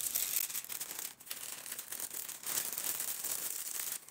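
Sheets of baking paper crinkling and rustling as they are folded over and wrapped closed around a leg of lamb, with a few brief pauses in the handling.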